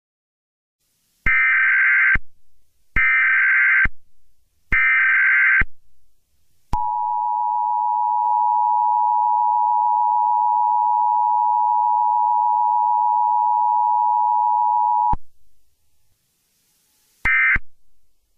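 Emergency Alert System tones: three bursts of warbling SAME header data, about a second each, then the two-tone EAS attention signal held for about eight seconds. Near the end, the first short end-of-message data bursts begin.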